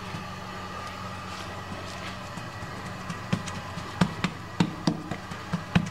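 Steady low hum from a kitchen background source. In the second half, light taps and clicks from handling food on the counter.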